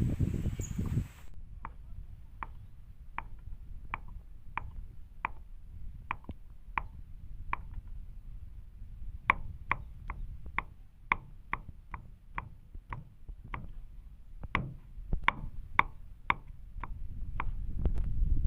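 Knife cutting cooked pig's blood on a cutting board: a steady series of short, sharp knocks, about one to two a second, after a brief rustle of handling at the start.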